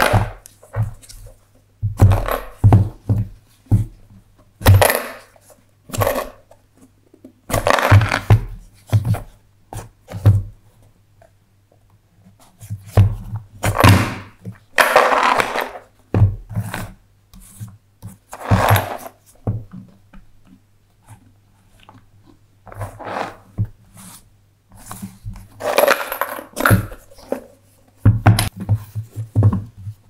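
Handling noise from a cardboard puzzle box with wooden disc tiles: clicks, knocks and short scrapes in irregular clusters as the box is turned over, set down and its tiles are pushed and shifted.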